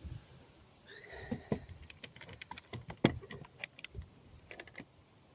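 Loose pallet nails clinking and tapping as they are gathered and handled, a scatter of small irregular metallic clicks with a few heavier knocks, and a short scrape about a second in.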